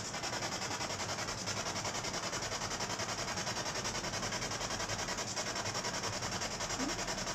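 Handheld spirit box (ghost box) sweeping through radio frequencies with its antenna down, giving a steady hiss of static chopped into rapid, even pulses.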